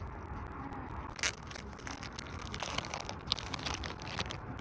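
Plastic food packaging being crinkled and torn open: irregular crackling rustles with one sharp, loudest tear about a second in.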